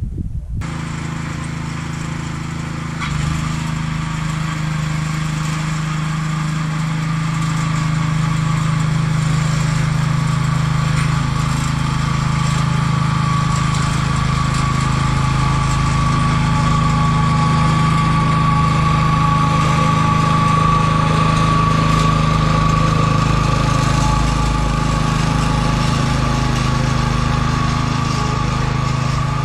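Small petrol engine of a Hulk 1 walk-behind motor cultivator running steadily while plowing, with a steady high tone above the engine hum. It grows somewhat louder over the first several seconds.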